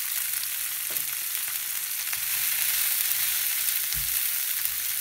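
Sprouted mung beans sizzling in hot oil in a non-stick frying pan: a steady frying hiss. A wooden spatula stirs them, with a few soft knocks near the end.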